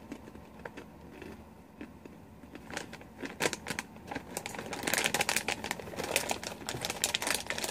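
Crinkling of a Hometown Bagel chips snack bag being handled and folded, with a few scattered crackles at first and dense crinkling over the second half.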